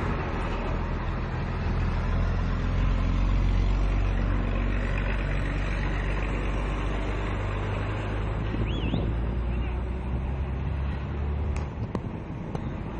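A ship's engine running with a steady low drone over a constant hiss; the drone drops away near the end, and a short rising whistle sounds about two-thirds of the way in.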